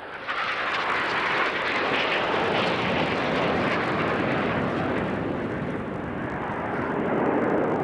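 BAE Hawk jet trainers flying low past with a loud jet roar. The roar comes in abruptly just after the start, higher-pitched at first and deepening through the second half as the jets go by.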